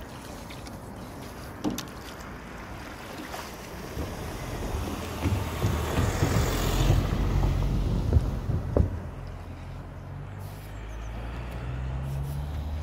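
Wind buffeting an outdoor microphone, gusting up for several seconds in the middle, with a few sharp knocks and a low steady hum near the end.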